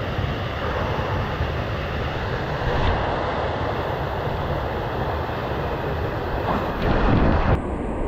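Wind buffeting an action camera's microphone: a steady rushing noise, heaviest in the low end.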